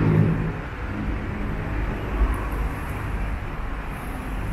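Road traffic: cars driving past on a city street, a steady low engine and tyre rumble.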